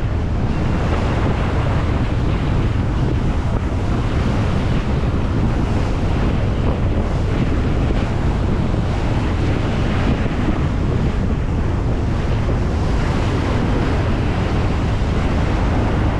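Steady wind buffeting the microphone over the rush of sea water and waves aboard a fishing boat at sea.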